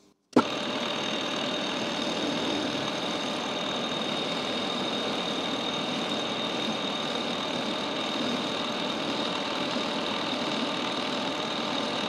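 Metalworking lathe starting up with a sharp click just after the start, then running steadily with its chuck spinning: an even mechanical hum with a thin, steady high whine.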